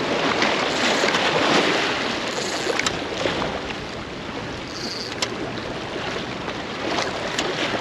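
Inlet water washing and splashing against jetty rocks, a steady rushing with a few faint clicks.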